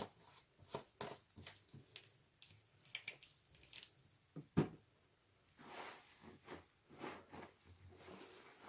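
Sponge soaked in washing-machine liquid being squeezed by hand: a quick run of short wet squelches, the loudest about halfway through, then slower, softer squishing of the suds.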